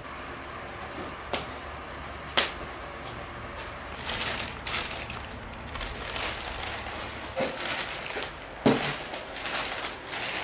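Steady background noise broken by a few sharp knocks, about a second apart near the start and once more near the end.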